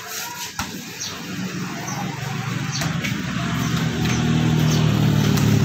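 Low hum of a motor engine running, building up about two seconds in and then holding steady, with a few sharp knocks.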